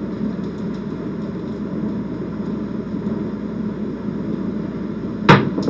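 A steady low background hum, then near the end a pair of craps dice thrown down the table lands with one sharp clack and a smaller click just after it.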